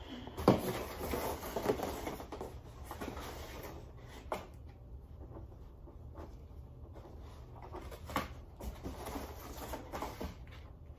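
A large cardboard box being handled and tipped over: rustling and scraping of cardboard and packing, with a few sharp knocks about half a second in, around four seconds and around eight seconds.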